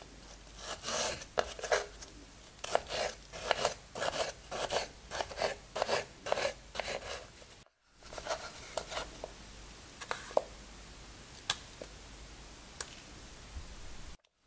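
Kitchen knife cutting a peeled pear into cubes on a bamboo cutting board, a quick run of crisp cuts a few times a second. About eight seconds in this gives way to a few scattered soft taps as pear cubes are picked from the board and set into muffin batter.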